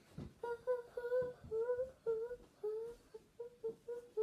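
A girl's voice humming a string of short notes, about two or three a second, some sliding upward in pitch.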